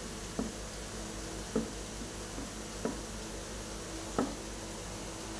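A utensil stirring thick whipped cream in a bowl, knocking against the bowl four times, about one knock every second and a bit, over a steady hiss.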